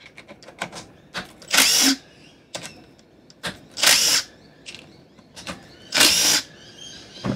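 Cordless impact driver (rattle gun) undoing the cover bolts on an outboard powerhead, running in three short bursts about two seconds apart. Light clicks and knocks of metal being handled come in between the bursts.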